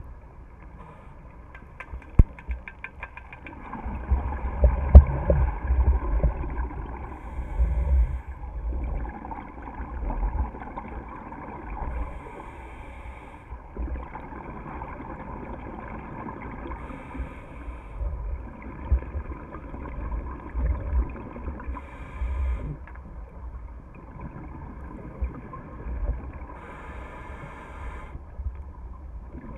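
Scuba regulator breathing heard underwater: exhaled bubbles gurgling and rumbling in surges every few seconds, with a quick run of clicks about two seconds in.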